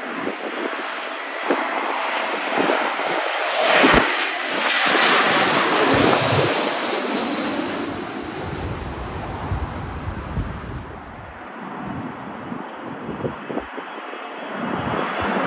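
Twin-engine jet airliner on final approach with its landing gear down, passing low overhead. The engine noise swells to its loudest a few seconds in, with a high whine that falls in pitch as it passes, then fades. Near the end the noise of another jet on approach grows louder.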